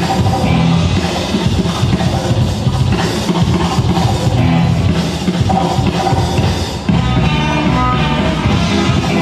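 Loud music with a drum-kit beat, played by the battle DJ over the event's speakers.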